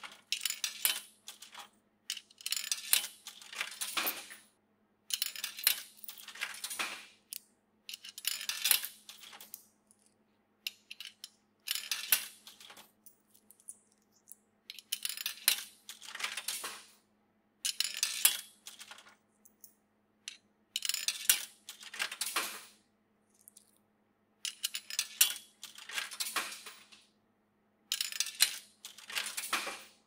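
Coins clinking and rattling through a vending machine's coin mechanism and change return, in about ten separate bursts a second or two long, every two to three seconds. A faint steady hum runs underneath.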